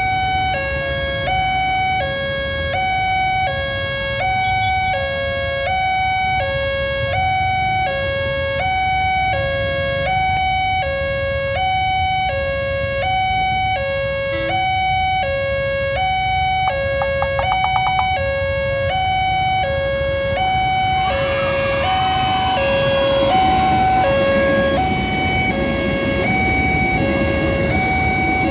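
Railway level-crossing electronic siren sounding its double alarm: a two-tone wail switching between a lower and a higher note about every 0.7 s, warning of an approaching train. Midway there is a brief run of rapid clicks. About two-thirds of the way through, a louder rumble joins in as the train comes through.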